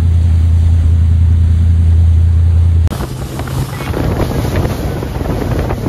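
A speedboat's engine drones steadily at a low pitch. About three seconds in it cuts abruptly to wind buffeting the microphone and water rushing and splashing off the hull as the boat runs across the water.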